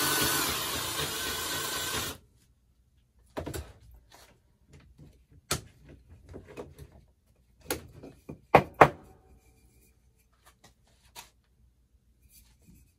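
Cordless drill boring a hole in a square wooden leg, cutting off suddenly about two seconds in. Then scattered knocks and clicks of workshop handling as the bar clamp is worked and the wood is moved, with two sharp knocks in quick succession about eight and a half seconds in.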